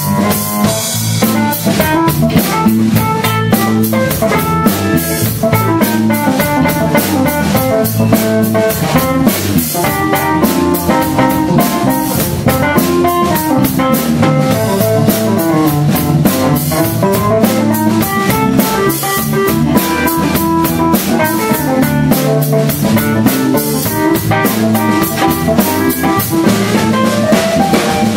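Live blues band playing an instrumental passage with no singing: drum kit keeping a steady beat under electric guitar, electric bass and keyboard.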